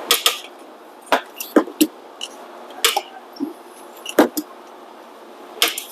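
Hand tools clinking and knocking against metal in irregular sharp strikes, about eight in all.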